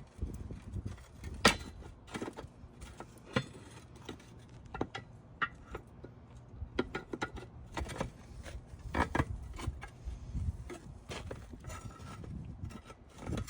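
Irregular metal clicks, taps and scrapes as a steel split lock ring is pried out of its groove on a 1940s split-ring wheel rim with a hook tool. The sharpest click comes about a second and a half in.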